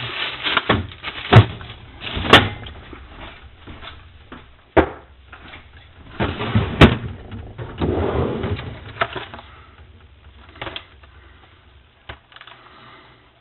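Condiment bottles and jars knocking and clinking as a refrigerator is rummaged through: irregular clatter with several sharp knocks.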